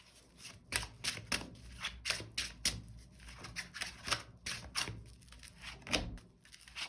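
Tarot cards being handled: a string of irregular soft slaps and flicks as the deck is shuffled and cards are drawn and laid down, a few per second.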